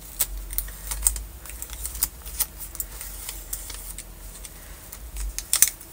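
Clear plastic carrier film of iron-on heat-transfer vinyl being peeled off letters pressed onto corduroy fabric: irregular crackling clicks, with a few sharper snaps near the end.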